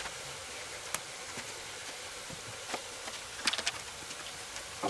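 Pork neck steaks sizzling on a charcoal kettle grill, a steady hiss, with a few light clicks of tongs and spatula against a small frying pan as bacon and onion are spooned onto the meat.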